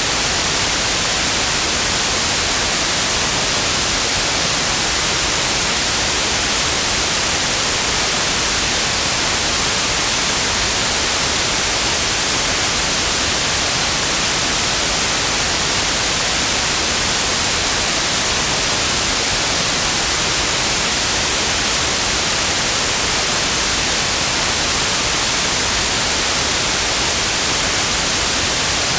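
Continuous white noise: an even, steady hiss across all pitches, unchanging throughout.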